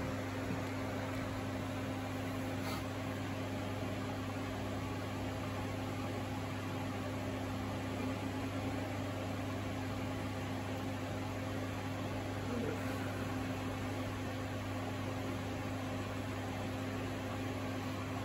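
Steady low electrical hum with a few constant tones over a soft hiss, unchanging throughout.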